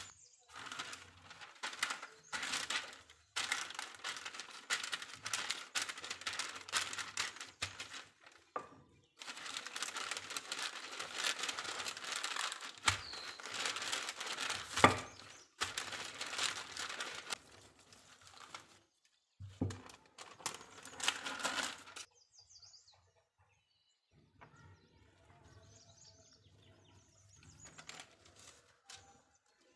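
Baking paper rustling and crinkling under a wooden rolling pin as dough is rolled out between the sheets, in long stretches with short pauses, then quiet for the last several seconds.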